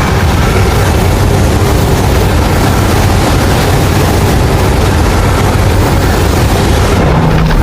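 Loud, steady rumbling roar, a dense wash of noise heaviest in the deep low end, from a homemade monster-movie sound effect.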